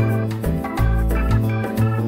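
Background music: sustained keyboard chords over a bass line that steps to a new note a few times a second.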